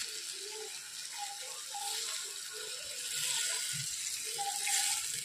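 Brinjal, drumstick and onion masala sizzling in a steel kadai while a slotted steel spoon stirs and scrapes it. Near the end water is poured into the hot pan.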